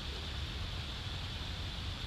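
Steady outdoor background noise: a low, uneven rumble with an even hiss above it, and no distinct calls or events.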